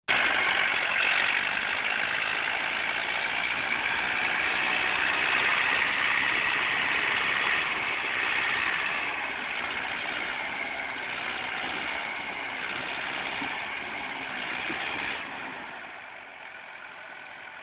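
Farm tractor's diesel engine running hard as it churns through deep mud, a dense steady noise that grows quieter about fifteen seconds in.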